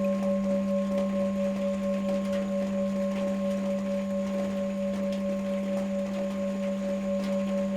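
Tibetan singing bowls ringing in a long sustained tone: a strong low hum with a higher overtone that wavers in a quick, even pulse, slowly fading.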